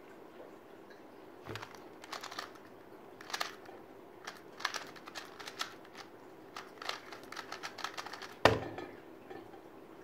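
2×2 speed cube being turned fast: a rapid, uneven run of sharp plastic clicks lasting about seven seconds. A thump starts the solve, and the solve ends with a loud slap on the Speed Stacks timer pad, the loudest sound.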